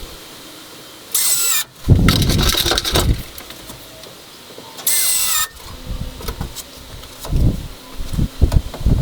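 Carpentry work on wood: two short, high-pitched whirs of a power tool about four seconds apart, with knocks and thumps of wood being handled in between.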